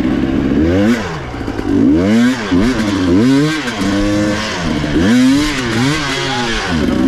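Motorcycle engine revving up and down over and over, the pitch rising and falling about once a second as the throttle is opened and closed.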